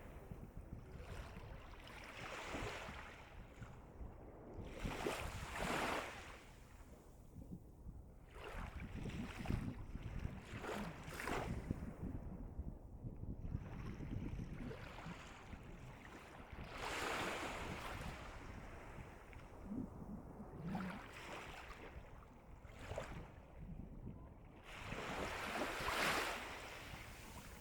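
Calm, small sea waves breaking and washing up the shore, a surge of surf every few seconds over a steady low rumble.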